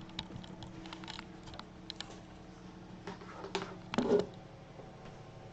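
Scattered light clicks and taps of a PC case being handled, with a louder clatter about four seconds in, over a steady low hum.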